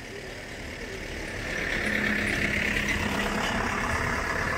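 A vehicle driving past close by, its engine and tyre noise growing louder about a second and a half in and staying loud.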